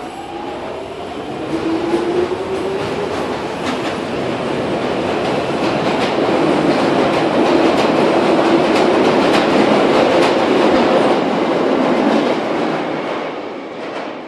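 London Underground Jubilee line 1996 Stock train pulling out of the platform. Its motor whine rises in pitch as it accelerates, then the wheel noise with scattered clicks grows loudest about halfway through and fades near the end as the last car enters the tunnel.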